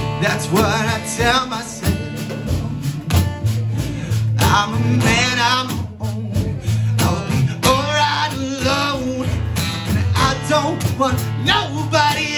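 Live duo playing: a man singing in phrases over his acoustic guitar, with snare drum, bass drum and cymbal keeping the beat.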